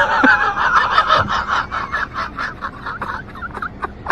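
A fowl calling in a fast run of repeated notes, about seven a second, that thins out into separate short, sharp notes in the last second.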